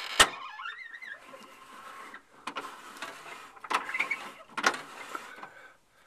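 Fiat Spider door window's bottom support scraping and clicking against the bent rod from the inside door release to the latch. A sharp clack comes about a quarter second in, then a brief wavering squeal, then several bouts of scraping, each starting with a click. The rod, bent over the years, interferes with the window support.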